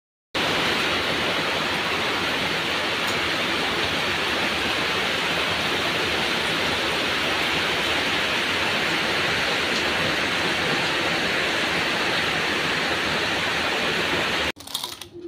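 Heavy rain pouring down, a loud, steady hiss that begins suddenly about half a second in and cuts off near the end.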